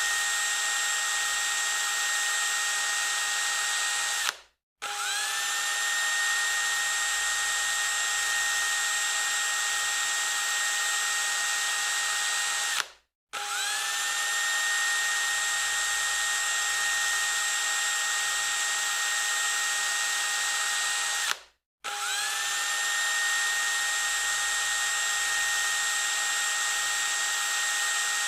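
Electric drill running at full speed with a steady high-pitched whine. It stops abruptly three times, about every eight and a half seconds, and each time spins back up with a short rising whine before settling at speed again.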